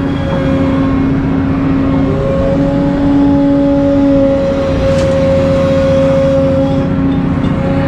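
Excavator's diesel engine and hydraulics running steadily under load, with a steady whine over the low engine rumble and a short click about five seconds in.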